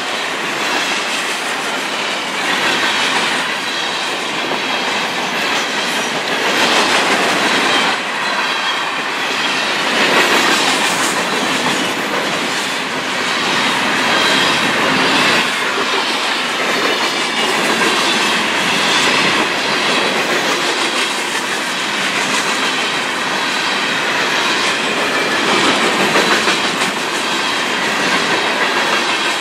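Open-top hopper cars of a CSX freight train rolling past close by, a steady noise of steel wheels running on the rails.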